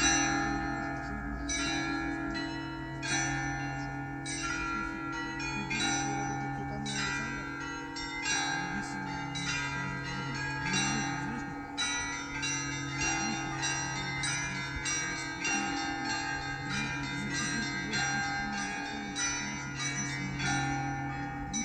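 Russian Orthodox cathedral bells rung together: the small bells are struck in quick, irregular succession over the steady hum of the larger bells.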